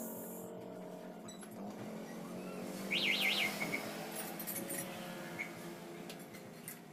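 A bird chirping a quick run of about four rising-and-falling notes about three seconds in, over a steady low background hum. A few light clinks of metal tools come near the end.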